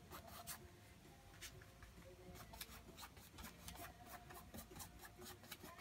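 Faint, scratchy strokes of a paintbrush dragging acrylic paint across a stretched canvas, in quick irregular swipes.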